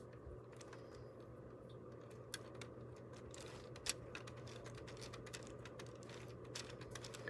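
Faint, scattered light clicks from hands handling a LEGO Technic model, over a low steady hum. Two clicks stand out slightly, about two and a half and four seconds in.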